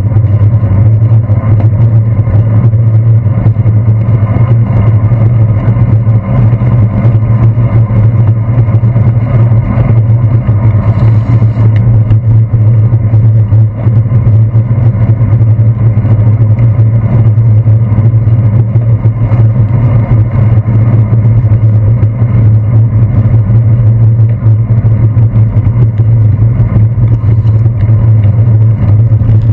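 Steady, loud, muffled low drone of a bicycle ride on wet streets, picked up by a handlebar-mounted GoPro Hero 2: road vibration and wind rumble with almost no high sound.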